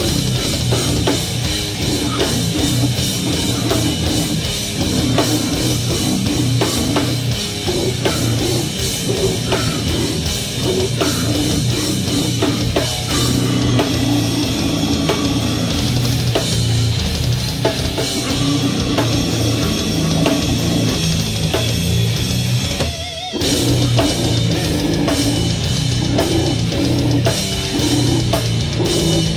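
A slamming brutal death metal band playing live: heavy distorted guitars and fast, pounding drums, with the vocalist growling into the microphone, heard from the crowd through a phone's microphone. About 23 seconds in the band stops for an instant, then crashes back in.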